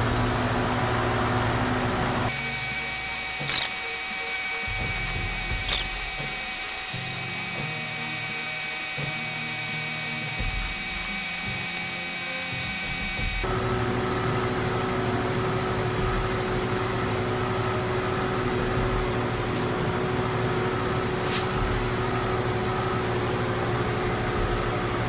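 Viair 400P 12-volt portable air compressor running steadily, powered from the vehicle battery while it pumps up an aired-down 37-inch tire. The tone changes abruptly about two seconds in and again near the middle, and there are two sharp clicks a few seconds in.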